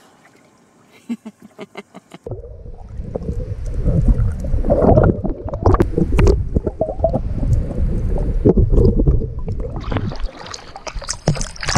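Water sloshing and splashing against a camera at the waterline as a swimmer comes alongside. It is a loud churning rumble with sharp knocks, starting about two seconds in, and turns to a hissier splashing near the end.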